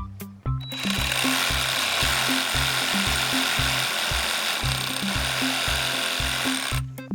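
Stanley 18 V cordless reciprocating saw running steadily for about six seconds as it cuts wood, starting about a second in and stopping suddenly near the end, over background music with a steady beat.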